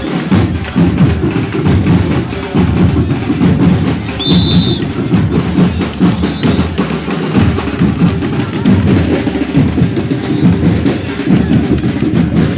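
A school marching rhythm band drumming a steady parade beat, with bass drums and snare drums playing loudly. A brief high whistle-like tone sounds about four seconds in.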